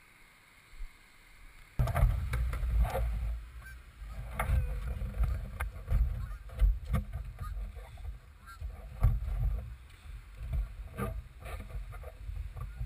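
Irregular knocking, rubbing and rumbling on a kayak-mounted action camera while the kayak is being handled or carried. It starts suddenly about two seconds in, after a faint start, and carries on in uneven bumps and clicks.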